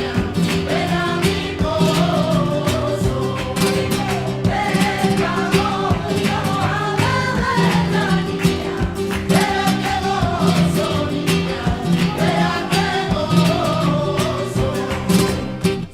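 Flamenco-style Christmas carol (villancico): a voice sings a wavering, ornamented melody over guitar, with sharp rhythmic strokes throughout.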